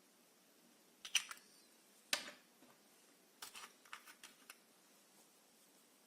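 Several short, sharp clicks and taps at close range: a small cluster about a second in, a single sharper click a second later, then a quick run of lighter clicks.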